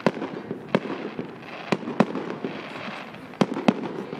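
Aerial firework shells bursting in the sky: about six sharp bangs at uneven intervals, two of them close together, over a steady background rumble.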